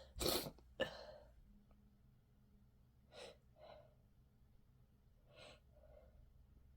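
A person with a head cold sneezes once sharply right at the start, then breathes quietly a few times, with soft breaths and sniffs. The sneezes are being brought on deliberately to relieve an itchy, tickly nose.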